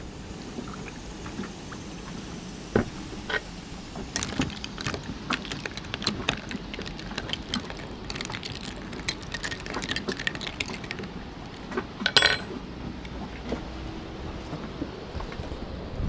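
A metal spoon stirring a rum and grapefruit-juice cocktail over ice in a glass: ice and spoon clink in quick, irregular taps, thickest in the middle, over a steady faint hiss.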